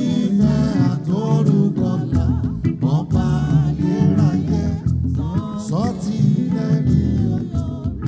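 Live gospel band music: a melodic lead vocal line over a full band with heavy bass, playing without a break.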